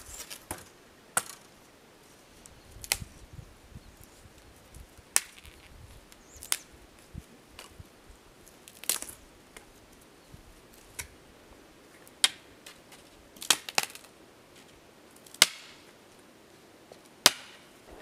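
Dry dead branches snapping as they are broken by hand into firewood lengths: about a dozen sharp cracks, irregularly spaced a second or two apart, with a quick cluster of three a little past the middle.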